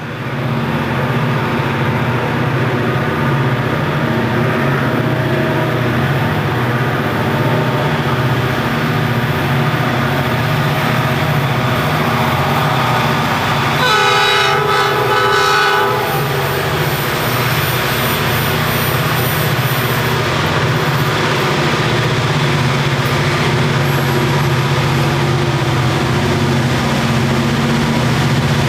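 The 3300 HP GM diesel engines of 'C' class locomotives throttle up and run loud and steady as the coal train pulls away. About halfway through, the locomotive horn sounds once for about two seconds.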